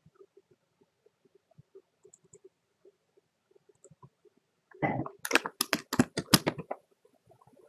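Computer keyboard typing: a quick run of about a dozen sharp key clicks lasting about two seconds, starting a little past the middle, with faint scattered ticks before it.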